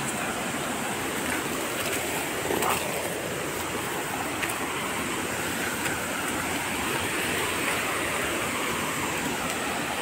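Steady rush of water from a small jungle waterfall.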